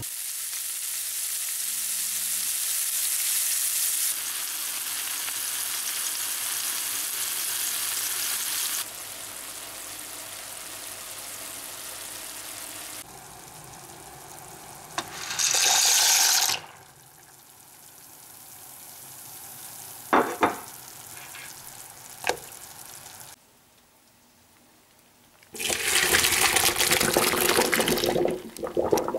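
Diced onion and bacon sizzling steadily in a frying pan for the first several seconds. Later comes a short loud rush of noise and a few sharp clicks. Near the end, boiling pasta water is poured out loudly into a plastic colander in a steel sink.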